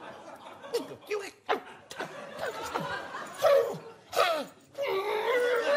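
A man's voice making short falling yelps, then a longer wavering note near the end: a comic breaking voice, called a 'Stimmbruch' just afterwards. Audience laughter and chuckling around it.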